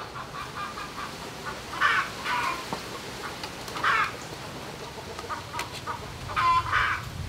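Chickens clucking in short calls every second or two.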